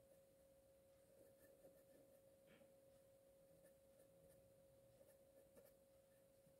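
Near silence, with a faint steady hum of a single tone and a few faint ticks.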